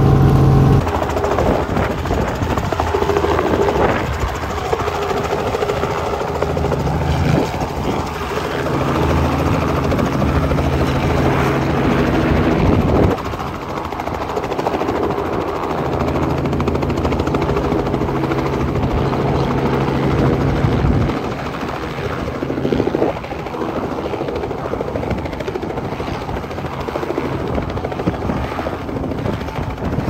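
Small Robinson helicopter's rotor and engine running steadily close by, as it hovers low and sets down on the pad and keeps running on the ground. The sound drops a step about 13 seconds in and again about 21 seconds in.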